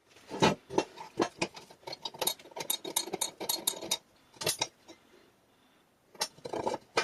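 A quick series of small metal clicks and clinks from a screwdriver and other hand tools against the steel of the vise, working at a stuck screw. The clinks stop for about a second and a half, then start again near the end.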